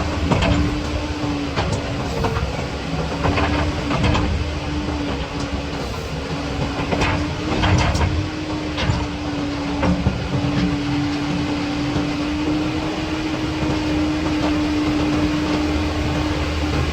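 Caterpillar 323D2L excavator's diesel engine running with a steady hum. There is a series of sharp metallic clanks in the first half, then it runs steadily.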